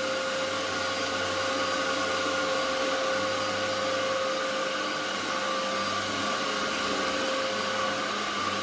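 Dyson DC07 upright bagless vacuum cleaner running steadily, its motor holding a constant whine over a rush of air.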